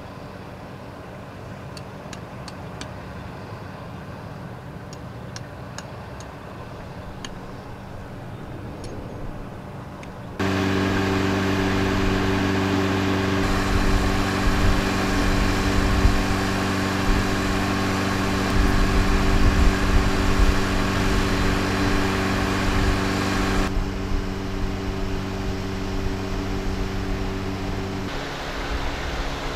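Paddlewheel aerators running on a shrimp pond: the steady hum of their motors over the churning splash of the paddles in the water. It jumps abruptly louder about ten seconds in, where the hum is strongest, and the hum drops out near the end.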